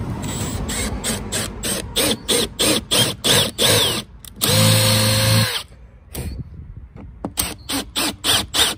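Cordless drill boring screw holes into a fiberglass boat gunwale, run in quick repeated trigger bursts that rev up and down. Near the middle it runs steadily for about a second, then goes back to short bursts near the end.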